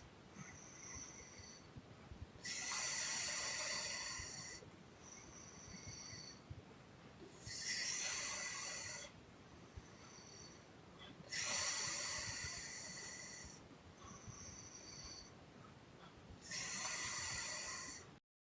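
A sleeping woman snoring and puffing. Four loud puffed breaths come about every four to five seconds, with softer breaths between them. The sound cuts off suddenly near the end.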